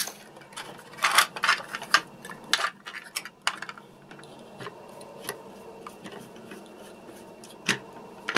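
Hard plastic clicks and knocks from handling a small remote-control toy car, its plastic body and chassis being pressed together, with a busy run of clicks in the first few seconds and a few single clicks later.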